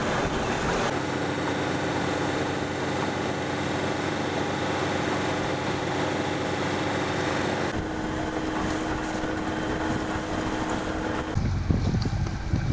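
A sailboat's inboard engine running steadily under way, a constant hum, with wind rumbling on the microphone, heaviest near the end. The sound changes abruptly a few times.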